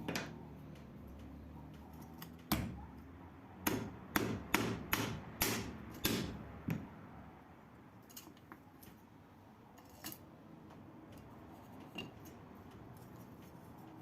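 Hammer blows: about eight sharp knocks, mostly in a quick run a few seconds in, then a few lighter taps spaced out towards the end.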